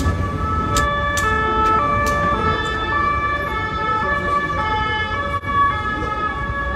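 Sustained high tones that step from pitch to pitch every fraction of a second, siren-like, with a few sharp clicks about a second in.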